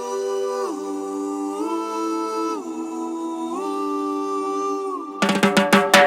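Layered voices humming a cappella, holding chords that step to a new pitch about once a second with short glides between them. A quick run of percussive hits comes in near the end.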